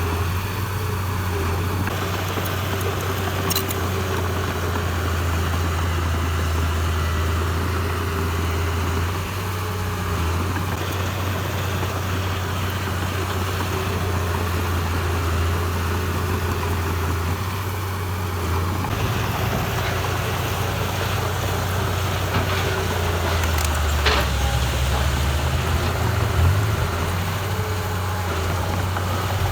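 Heavy diesel earthmoving machinery engine running steadily with a low hum, its note shifting slightly a little past the middle.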